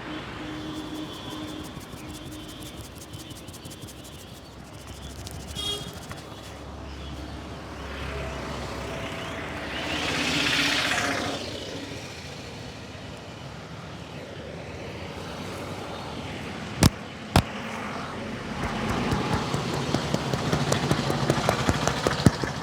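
Street traffic noise with a vehicle passing about halfway through. Later come two sharp cracks about half a second apart, then a run of rapid hand taps from a head massage.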